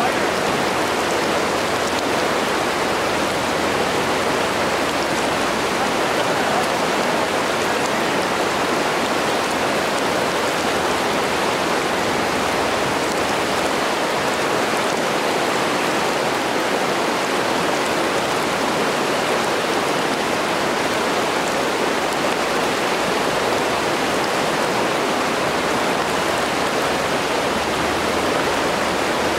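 Fast, shallow river riffles rushing over rocks: a loud, steady, even rush of water with no breaks.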